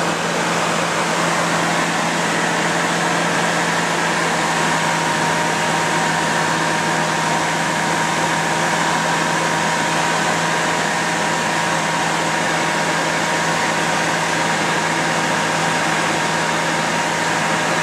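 Small aircraft engine running steadily in flight: a constant drone that holds the same pitch throughout, with a thin steady whine above it and a rush of noise.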